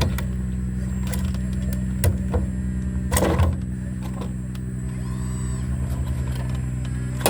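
Sumitomo SH120A3 excavator's diesel engine running steadily, with a few sharp knocks and a louder burst of clatter about three seconds in.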